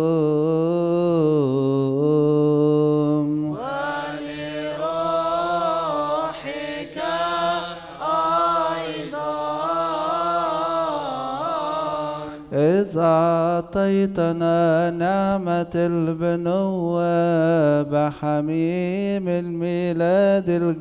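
A man's voice chanting a long melismatic Coptic liturgical melody, with held notes that waver and slide between pitches, heard through the church's microphone. A patter of sharp clicks runs under the chant through the latter half.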